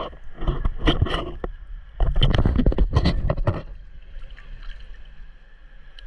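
Seawater sloshing and splashing right at the camera as it is moved through the surface, in two loud, crackly bursts, the second about two seconds in. A faint steady high whine runs underneath.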